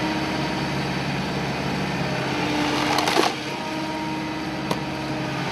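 Engine of a forestry machine running steadily with a constant hum, with a short louder burst about three seconds in.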